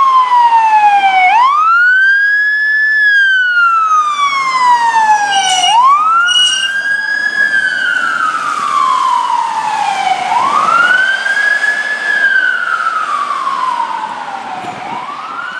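Fire truck siren on a slow wail, rising quickly and falling slowly about every four and a half seconds, growing fainter near the end. Two brief high blasts cut in about six seconds in.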